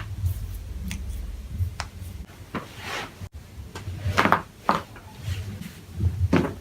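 Joints cracking under chiropractic spinal and neck adjustments: a string of sharp pops and cracks, some in quick pairs. Two louder, longer crunches come in the second half.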